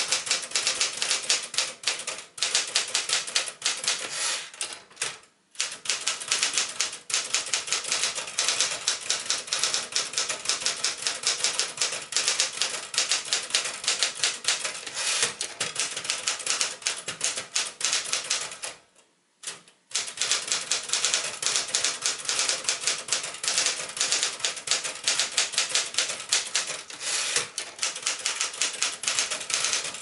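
Circa-1968 Smith-Corona Galaxie Deluxe manual portable typewriter being typed on at a fast, steady pace: a rapid run of sharp clacks as the typebars strike the platen, halting briefly twice.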